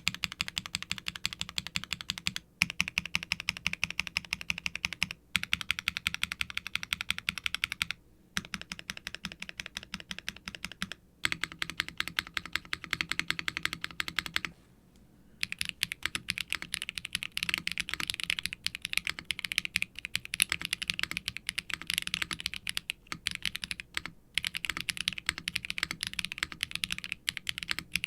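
Continuous fast typing on a custom mechanical keyboard with factory-lubed Akko x HMX Cilantro tactile switches, an FR4 plate, GMK double-shot ABS keycaps and a silicone tray-mount case with no added dampening: a dense run of keystroke clacks with a few brief pauses, the longest about halfway through.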